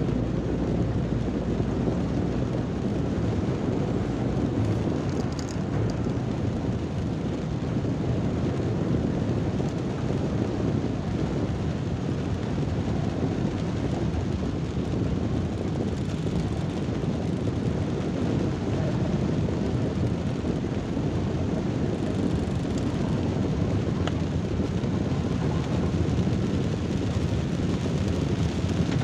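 Steady low noise inside a moving car's cabin in heavy rain, even and unbroken, with most of its weight in the low end.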